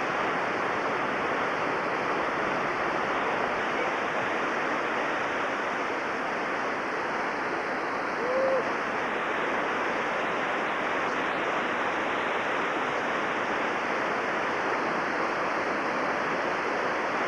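Steady rush of whitewater rapids pouring over boulders, with one short voice call about eight seconds in.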